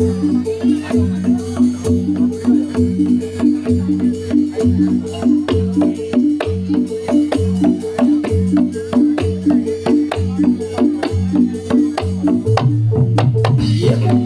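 Live gamelan music for a jathilan dance, played through a PA sound system: a repeating melody on metal-keyed percussion over steady drum strokes. Near the end a deep low note swells in beneath it.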